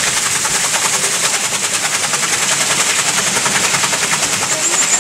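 Water pouring from a flume onto a wooden water wheel and splashing off it as the wheel turns: a loud, steady rushing with a fast, even flutter.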